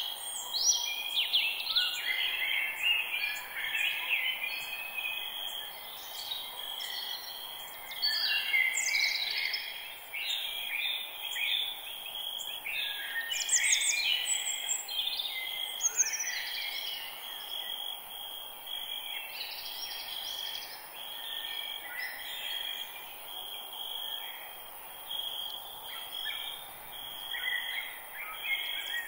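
Forest chorus of several birds singing and calling over one another, busiest in the first half, over a steady high pulsing trill of insects.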